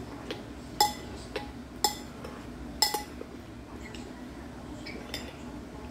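Eating utensils clinking against a bowl: three sharp, ringing clinks about a second apart in the first three seconds, then a few fainter taps.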